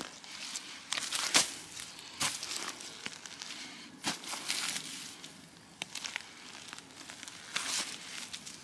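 Small hand shovel digging into wet peat bog soil and leaf litter: a series of separate crunching, tearing scrapes, the loudest about a second and a half in.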